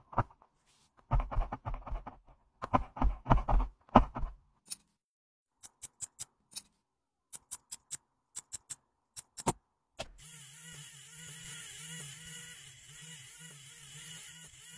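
A metal pick scraping and crunching under a toenail in several bursts, then a quick series of sharp nail-nipper snips, then, about ten seconds in, an electric nail drill starting up and running steadily with a whirring hum and hiss as it files the nail.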